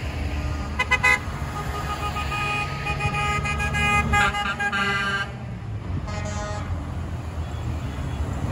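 Tow trucks driving past one after another, engines running, honking their horns: a couple of short honks about a second in, then longer overlapping horn blasts of several pitches for a few seconds, and one more brief honk after that.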